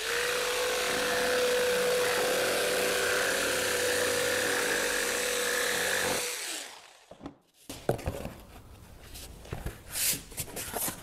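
Corded jigsaw running steadily as it cuts a straight line through a sheet of corrugated cardboard, stopping about six seconds in. A few faint knocks follow.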